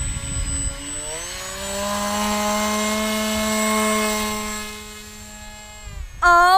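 Electric motor and propeller of a small foam flying wing whining, rising in pitch as the throttle comes up about a second in, then held steady as the hand-launched wing climbs away, and fading out. A loud voice cries out, falling in pitch, near the end.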